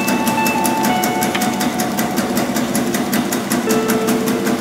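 Bakso meatball-forming machine running: a steady motor hum under a fast, even clatter of about eight strokes a second from its forming and cutting mechanism.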